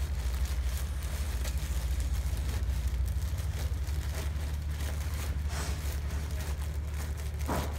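Faint rustling and crinkling of a plastic-sleeved fire sock being pushed by hand into a timber-frame wall cavity, with a short louder rustle near the end. A steady low hum runs underneath throughout.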